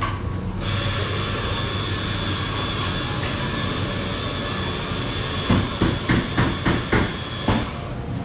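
A café coffee machine running with a steady hiss and a high whine, starting abruptly and cutting off near the end, over a low hum. Several sharp knocks come in the last few seconds.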